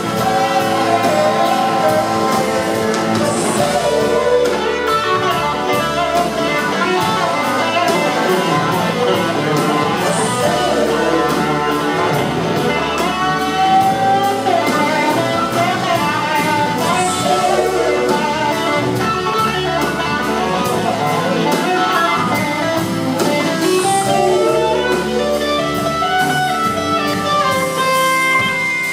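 Live electric blues-rock band playing an instrumental passage with no vocals: electric guitar leading over a drum kit and the rest of the band.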